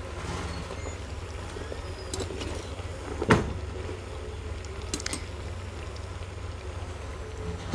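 Papdi frying in hot oil in a metal kadai, stirred with a wire-mesh skimmer. One sharp clink of the skimmer against the pan comes about three seconds in, and a few lighter clinks follow around five seconds, over a steady low rumble.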